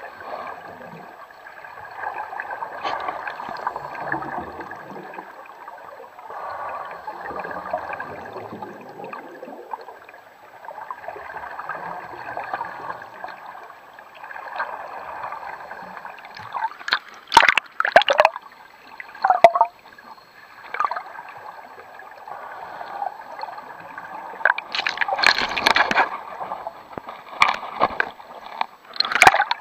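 Underwater pool sound: scuba divers' exhaled bubbles gurgling in swells every few seconds over a faint steady hum, with sharp knocks and clicks starting a little past halfway, the loudest near the middle and again near the end.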